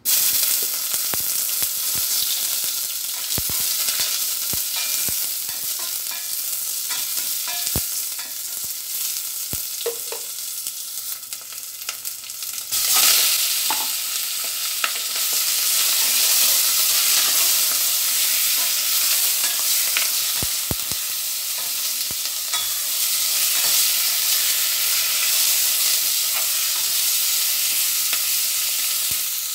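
Chicken pieces with onion, tomato, ginger and green chili searing in a hot stainless steel pot without water, with a steady sizzle. Scattered clicks and knocks come through in the first half, and the sizzle grows louder about 13 seconds in.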